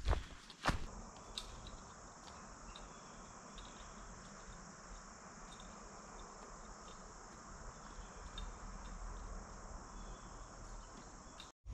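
Steady high-pitched chorus of crickets in woodland, with faint separate chirps over it. A couple of footsteps on leaf litter sound in the first second.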